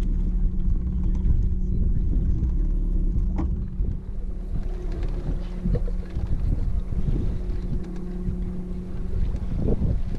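Boat motor running with a steady hum, and water splashing against the hull from about four seconds in, with wind on the microphone.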